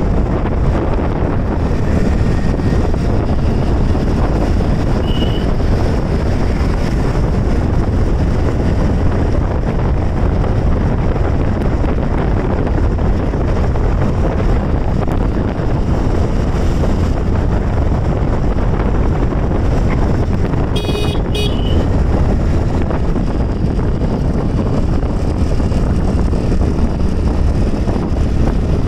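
Wind rushing over the microphone of a moving motorbike, with engine and road noise underneath, steady throughout. A short horn toot about two-thirds of the way through.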